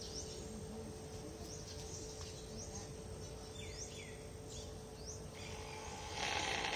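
Small birds chirping: several short, falling chirps over steady background noise with a faint hum. A louder rasping noise starts near the end.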